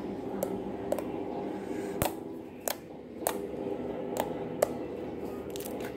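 Fingers poking and squeezing yellow fluffy slime, giving about eight sharp little clicks and pops at irregular intervals as air is pressed out of it. A steady low hum sits underneath.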